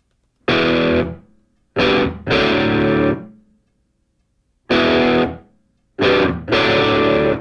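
Background music: a distorted electric guitar striking loud chords in separate stabs, each ringing out and dying away with short silences between.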